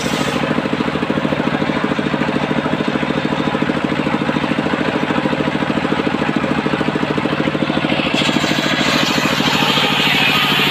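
Engine of a homemade circular-saw rig running steadily with an even pulsing beat; about eight seconds in a brighter hiss joins it.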